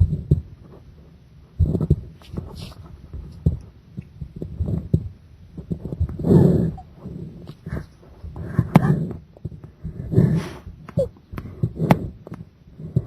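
Human heartbeat picked up against the chest during a held breath: slow, low thumps about every one and a half to two seconds, with a few sharp clicks between them.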